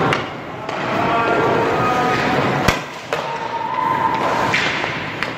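Hockey skate blades scraping on rink ice as a goalie shuffles across the crease and drops into the butterfly, with one sharp crack about two and a half seconds in.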